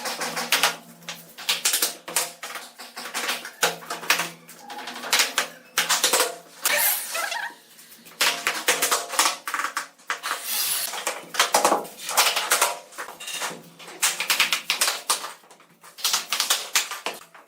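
Dense, irregular clattering and tapping of hard pieces of bamboo being worked by hand, many sharp knocks in quick clusters with short pauses between them.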